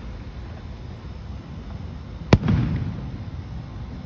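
A single sharp firework bang about two seconds in, followed by a brief rumbling echo.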